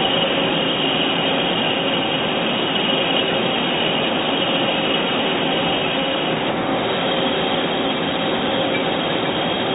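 Doosan Puma GT2100MS CNC turning centre running: a steady mechanical noise with a high whine that breaks off and resumes slightly higher about six and a half seconds in.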